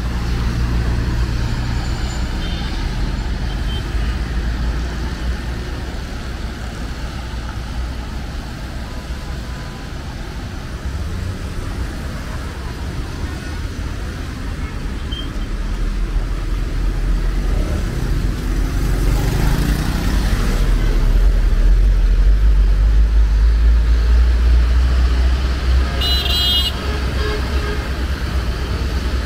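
Street traffic rumbling steadily. About two-thirds of the way through a vehicle passes close by, its engine note rising and falling with a wash of tyre hiss. Near the end a short, high horn toot sounds once.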